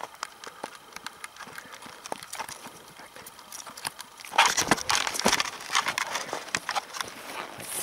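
Footsteps crunching through snow and dry brush, with twigs and branches brushing and crackling past, a quick run of clicks that gets louder about four seconds in.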